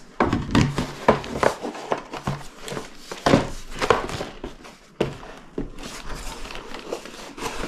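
Cardboard model-kit box being opened and handled: irregular scrapes, rustles and light knocks of card against card and the table, with a sharper knock a little past three seconds and another at about five seconds.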